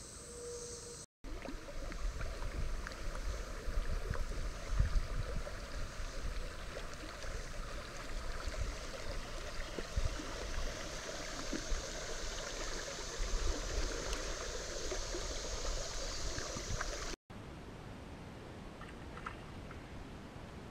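River water rushing and gurgling over a shallow riffle around a drifting kayak, with uneven low rumbling underneath. Near the end it gives way to a quieter steady hiss of calm water.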